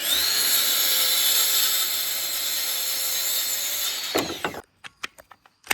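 Power saw spinning up with a rising whine and cutting through a wooden deck board for about four seconds, then winding down; a few short knocks of wood follow near the end.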